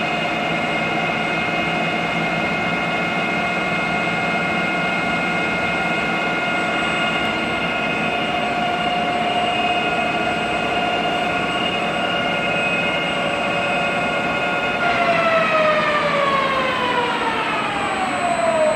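SUA 125 CNC lathe running its spindle drive while rough-boring a hole: a steady machine whine made of several pitched tones over the noise of the cut. About fifteen seconds in, all the tones start falling steadily in pitch as the spindle slows.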